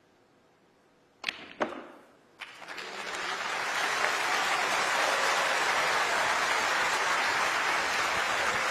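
Snooker cue striking the cue ball and the cue ball clicking into an object ball, two sharp clicks about a second in, followed by a further knock. Then audience applause swells and carries on steadily, the loudest part.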